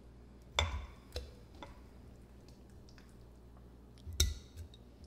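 Raw chicken pieces being put by hand into glass canning jars: soft wet knocks against the glass, a sharp one about half a second in and a louder one near the end, with a few fainter ticks between.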